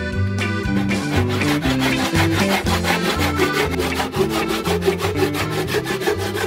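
Brass-backed tenon saw cutting wood with quick, regular strokes, starting about a second in; its blade has just been rubbed on an oil-soaked rag so it slides without binding. Background music with guitar plays throughout.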